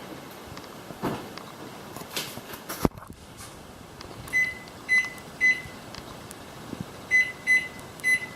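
Oven door shut with a sharp knock, then six short, high electronic beeps in two sets of three as a kitchen timer's keypad is pressed to set it.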